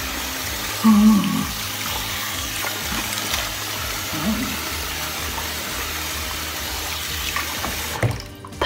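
Bathroom sink tap running steadily while water is splashed on the face to rinse off a clay cleanser, stopping abruptly about eight seconds in. A short low voice sound comes about a second in, and another about four seconds in.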